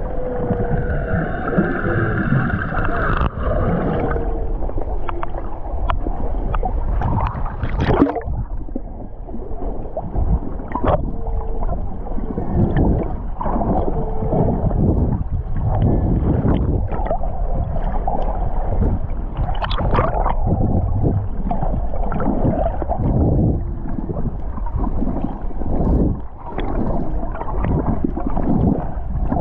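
Underwater sound of water rushing and bubbling around the camera, with many short knocks and swishes from movement in the water. A few humpback whale calls, short tones with overtones, sound in the first few seconds and once more briefly about eleven seconds in.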